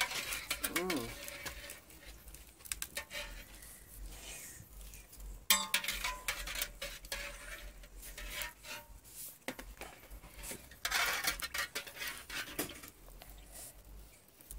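Metal utensils clinking and scraping against a cooking pot and a serving bowl as blanched potato halves are scooped out of their water: a string of irregular light clinks.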